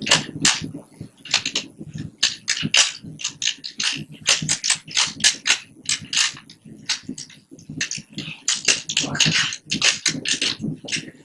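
Plastic 3x3 Rubik's Cube layers clicking and clacking as they are turned rapidly one-handed in a speedsolve: quick irregular runs of sharp clicks with brief pauses between them.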